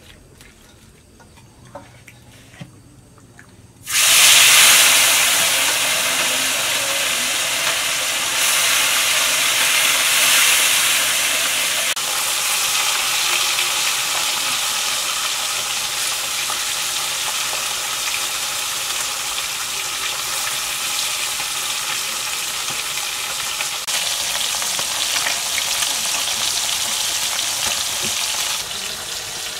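A few soft handling clicks, then about four seconds in a sudden loud sizzle as small spice-marinated fish go into hot oil in a kadai. The frying then goes on steadily.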